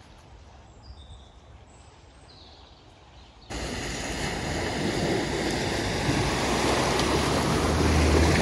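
Quiet outdoor ambience with a few faint bird chirps, then after a sudden cut a Vauxhall Corsa hatchback driving through deep floodwater. The rush and splash of the pushed-aside water grows louder as the car passes close, with its engine hum low underneath near the end.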